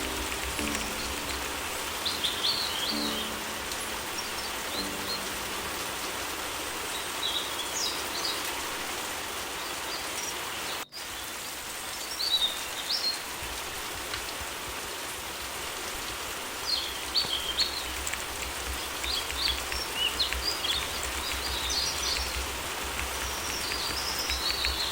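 Steady rain hiss with birds chirping in short, scattered bursts throughout. The sound drops out briefly about eleven seconds in.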